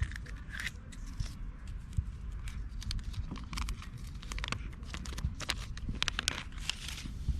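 Irregular crinkling, tearing and clicking from Kinder Surprise eggs being handled: foil wrapper and small plastic toy parts, over a low steady rumble.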